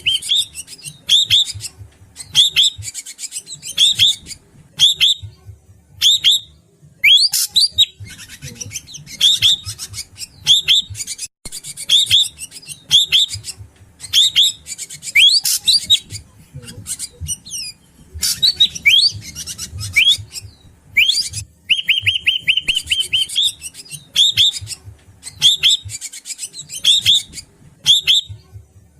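Drongo (srigunting batu) calling: a dense, fast run of sharp chirps and whistles, with a buzzy rattle about three-quarters of the way through. It is played as a bird-lure recording.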